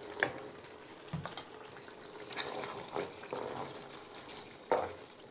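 Boiled sauerkraut tipped from a metal colander into a steel pot of stewing meat, then stirred in with a wooden spoon: wet scraping and shifting with scattered clinks and knocks against the pot, the sharpest about a quarter second in and near the end.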